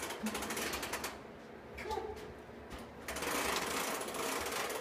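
A baby's plastic push-walker toy rolling along carpet, its wheels and toy parts clattering in a rapid mechanical rattle. The rattle eases in the middle and picks up again, denser, about three seconds in.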